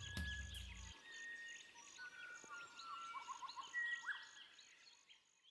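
Wild birds calling: quick chirps, rising and falling whistles, several long held whistled notes, and a fast run of about five notes a little past the middle. Faint high insect chirping repeats a few times a second underneath.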